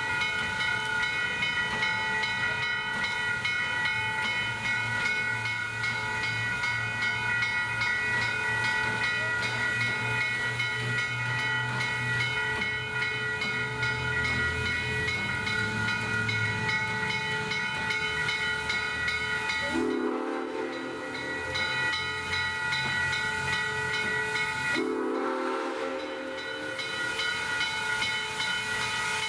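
Baldwin 2-6-6-2 steam locomotive standing and hissing steam, with several high steady tones held over the hiss throughout. Two short whistle blasts come about 20 and 25 seconds in.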